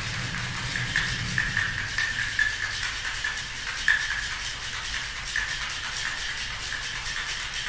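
Ice rattling inside a metal cocktail shaker shaken hard and steadily, a continuous fast rattle, as a martini is shaken to chill and mix it.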